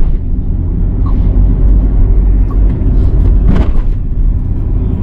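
Steady low road rumble of a car driving at highway speed, with a brief louder burst of noise about three and a half seconds in.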